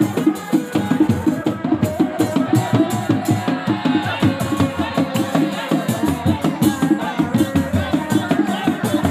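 Sundanese Reak ensemble playing: dog-dog frame drums beat a fast, dense, interlocking rhythm, with a melody line wavering above the drums.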